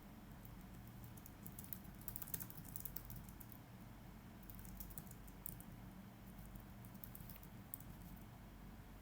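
Faint typing on a computer keyboard in short bursts of key clicks, busiest in the first few seconds and again around the middle, then only a stray click or two, over a low steady hum.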